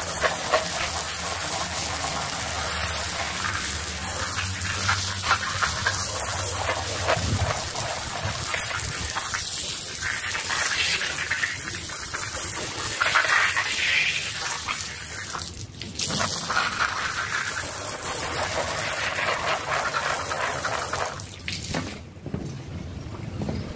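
High-pressure water spray hitting a wet artificial-grass rug in a steady hiss, with a low motor hum under it in the first third. The spray breaks off briefly about two-thirds through and drops away near the end.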